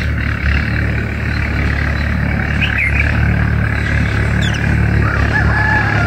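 Steady low outdoor rumble with a few short, high bird chirps and quick falling chirps. A long, drawn-out call sets in near the end.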